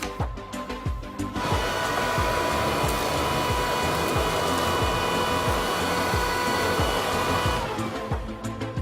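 Bosch Unlimited cordless stick vacuum running: a steady motor whine with air rush starts about a second and a half in and stops near the end, over background music with a steady beat.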